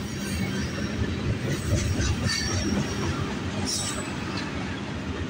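Freight train cars rolling past on the rails: a steady rumble, with brief high-pitched wheel squeals in the first half and again near the end.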